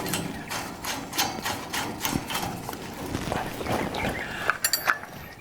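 Men laughing hard without words: a run of breathy bursts, about three a second.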